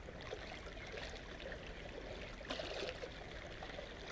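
Small waves lapping and splashing against shoreline rocks, a little louder about two and a half seconds in.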